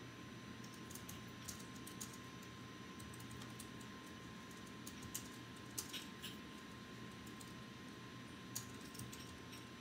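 Scattered light clicks and taps, a few at a time and loudest a little past the middle, over a faint steady hum.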